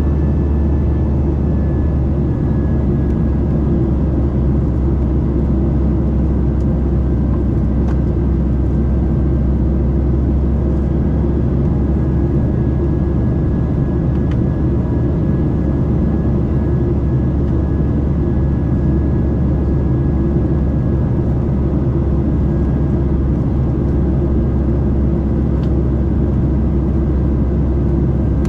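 Cabin noise of a Boeing 737-800 in flight, heard from a window seat beside the CFM56-7B engine: a steady low rumble of engine and rushing air, with a faint steady high whine above it.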